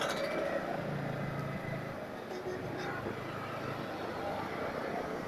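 Yamaha MT-15 V2's 155 cc single-cylinder engine running as the bike slows and is shifted down from fifth to fourth, with steady wind and road noise.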